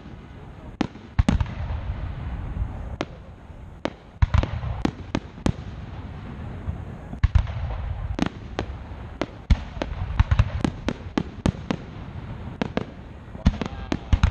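Aerial fireworks shells bursting: sharp bangs and crackles in quick, irregular succession over a steady low rumble, with the densest clusters of reports about four, seven to eight, and ten to eleven seconds in.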